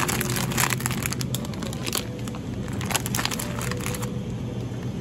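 Plastic food packaging crinkling as it is handled, in dense bursts of crackles through the first three and a half seconds, then only a few, over a steady low hum.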